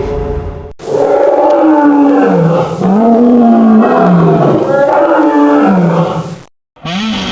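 Dinosaur sound effect: a long, deep roaring call whose pitch rises and falls several times. It breaks off briefly, and another call starts near the end.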